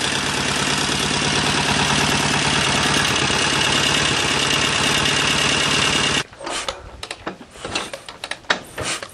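A Soviet K-750 motorcycle's side-valve boxer twin idling with a knock that carries a note of squeak, a noise that turns out to come from oil starvation at the piston and connecting rod. The running sound cuts off about six seconds in, giving way to scattered clicks and knocks.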